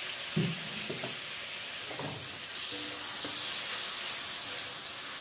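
Spice paste sizzling in a kadai after a splash of water, while a metal spatula stirs it and knocks against the pan a few times. The sizzle grows louder a little past halfway through.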